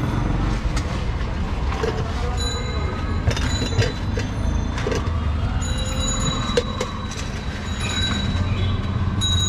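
Steady roadside traffic rumble, with a few light clinks of a steel cup and pot lid being handled, about three seconds in and again later.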